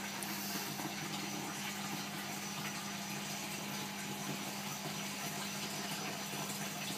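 Aquarium aeration bubbling steadily in the tank water, over a steady low hum from the pump.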